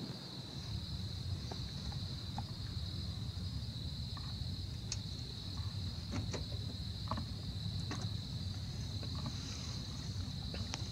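Insects trilling steadily at one high pitch over a low, steady rumble of outdoor night ambience, picked up by a camera microphone, with a few faint ticks.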